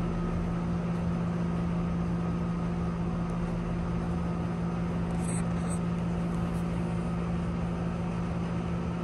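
Steady low machine hum, such as room air conditioning, holding one constant low tone. Two faint brief ticks about halfway through.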